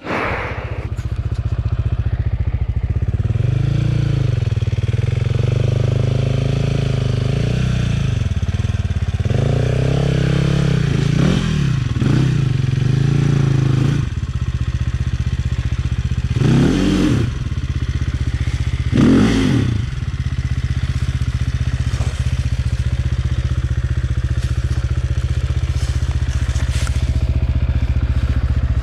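Enduro dirt bike engine idling steadily, with a few short throttle blips and two sharper revs about two-thirds of the way through.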